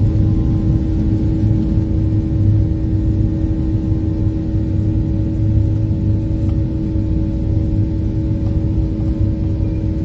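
Jet engines of a Ryanair Boeing 737-800 running steadily, heard from inside the cabin as the airliner rolls along the runway on its takeoff run. The sound is a loud low rumble with a steady hum above it.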